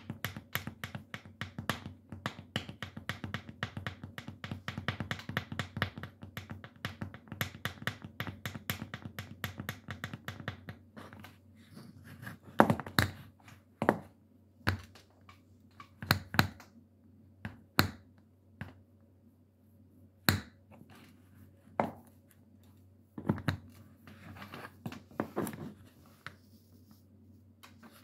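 Metal shoe taps clicking in a fast, dense patter, then after about eleven seconds slowing to single sharp taps a second or two apart.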